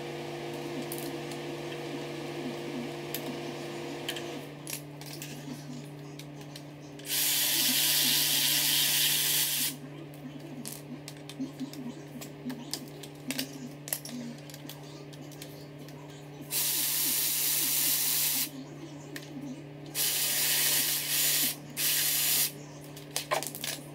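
A power tool running in four bursts, each a second or two long, while bolts are worked on an engine-to-gearbox bell housing, with clicks and clanks of tools in between and a steady low hum underneath.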